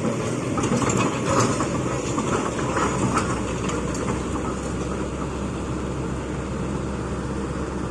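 Kobelco excavator's diesel engine running steadily while loading rocks onto a truck, with a run of clattering knocks over the first three seconds or so that then settles into the steady engine drone.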